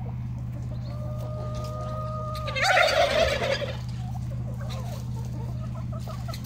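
A chicken calling: one long steady note held for about a second and a half, then a loud, harsh squawk lasting about a second.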